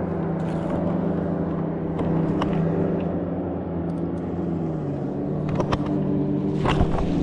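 A small boat motor running steadily with an even hum, its pitch dropping slightly about five seconds in; a few sharp clicks come near the end.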